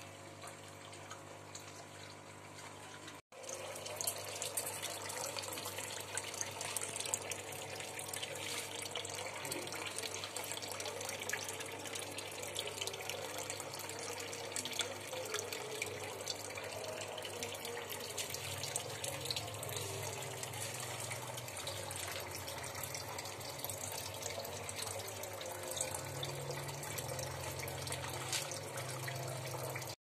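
Water splashing and trickling into a tarpaulin fish pond, steady, with a low hum underneath. The sound cuts out for a moment about three seconds in, then comes back louder.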